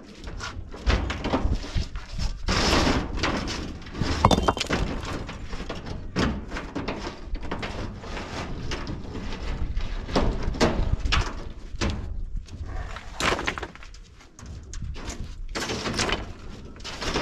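Rough building stones being unloaded from a pickup truck bed: irregular heavy clunks and clatter of stone knocking on stone and on the truck bed, several a few seconds apart.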